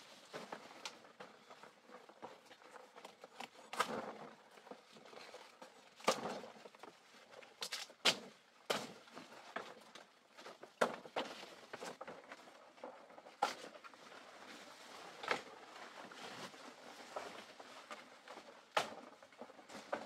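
Leaves and stems rustling and snapping as forest plants are handled and cut, with irregular sharp knocks and snaps about one every second or two.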